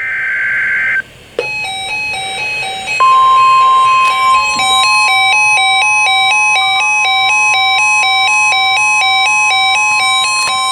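NOAA Weather Radio emergency alert: the tail of a SAME data burst, then from about 3 s in the steady 1050 Hz warning alarm tone that heralds a watch or warning. A repeating two-note electronic chime melody plays throughout under the tone.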